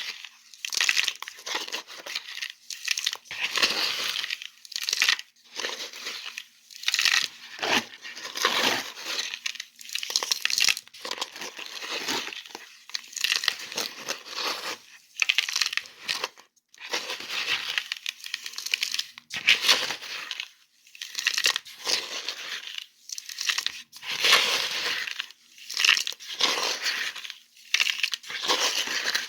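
Sand and pebbles being handled close to the microphone: a gritty rustling crunch that comes in repeated strokes of about a second each, separated by brief pauses.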